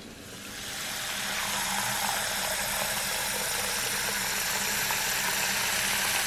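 Tap water running in a steady stream into a metal pot as it fills. The rush builds over the first second, then holds steady.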